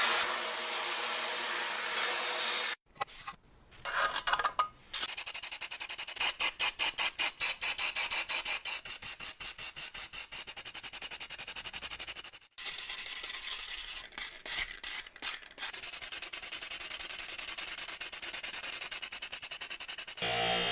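A steady hiss cuts off about three seconds in. After that comes hand sanding: quick, regular back-and-forth rubbing strokes on a small metal piece, in two long runs with a short uneven break between them.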